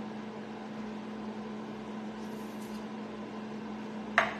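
Steady low electrical hum of a kitchen appliance, with a brief sharp noise near the end.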